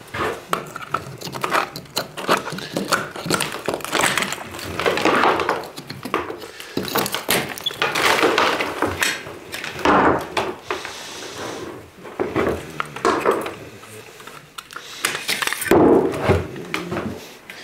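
Old electrical cable being ripped off a bare brick wall and cut away: irregular scraping and rasping with many sharp clicks and knocks as it comes loose.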